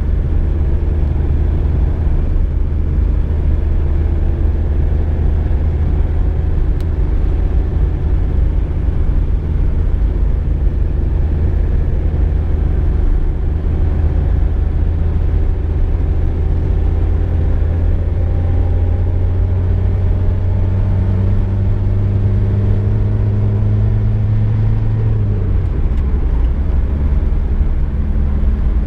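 Car engine and road rumble heard inside a VW Golf Mk2 on the move. The low, steady engine drone climbs slowly in pitch through the second half as the car gathers speed, then falls suddenly near the end.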